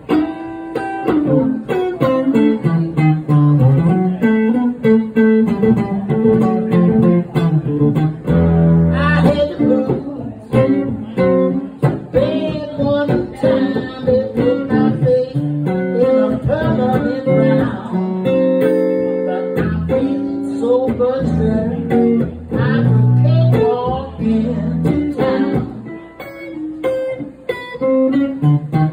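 Telecaster-style electric guitar played solo through an amplifier: a low bass line under a melody, with some notes bent upward.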